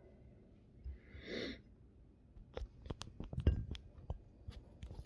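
Handling noise of a phone camera held close: a short breathy rush about a second in, then a run of irregular clicks and knocks as fingers grip and move the phone.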